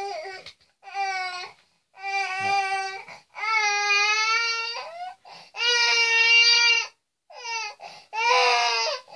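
Baby crying hard: a string of about six high-pitched wails, each around a second long, broken by short catches of breath.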